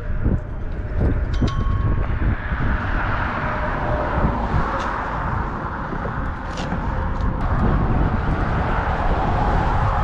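Road traffic on a bridge: a steady rumble of passing vehicles that swells in the second half, with a couple of short sharp clicks about five and six and a half seconds in.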